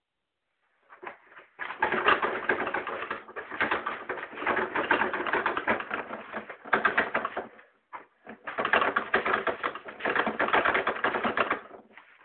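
Paper towels crackling and rustling as a cat paws at the roll and pulls the sheets off, a dense patter of rapid crackles in several spells with brief pauses.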